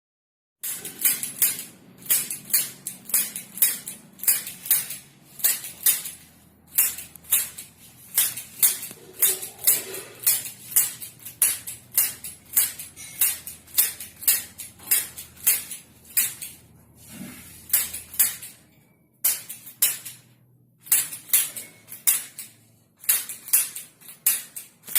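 Chiropractic adjusting instrument clicking sharply over and over, about three clicks a second, in long runs with a short pause about 18 seconds in.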